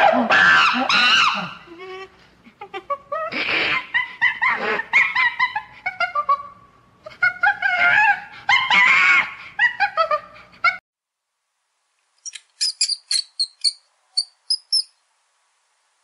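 Macaque calls: a run of loud cries that waver up and down in pitch for about the first ten seconds. After a short silence comes a quick series of about a dozen high-pitched mouse squeaks.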